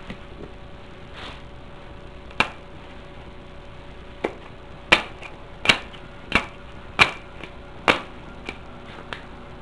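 Hex key snapping onto the strong side of a five-magnet neodymium Halbach array inside an aluminium tube, pulled on too fast to see: a run of sharp metallic clicks, about seven loud ones at uneven gaps with a few fainter taps between.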